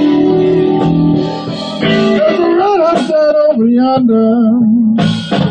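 Live band music led by guitar, with a lead line that bends and wavers in pitch through the middle before the full band swells back in near the end.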